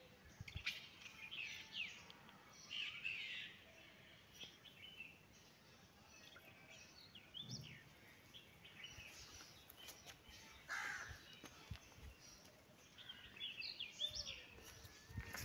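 Small birds chirping, faint, with many short high chirps scattered throughout over quiet outdoor ambience.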